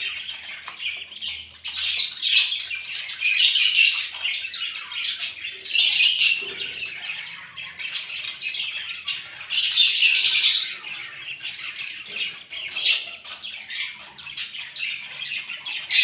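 Ducklings peeping without a break as they feed, high-pitched and dense, with a few louder bursts.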